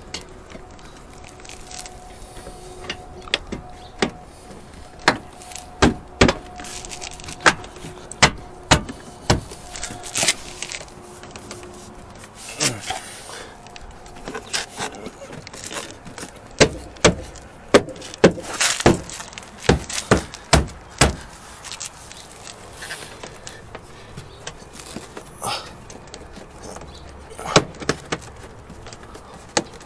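Plastic fender duct cover on a Subaru WRX STI being handled and fitted back onto the front fender by hand: a string of sharp clicks and knocks, densest from about five to twenty seconds in, with a few more near the end.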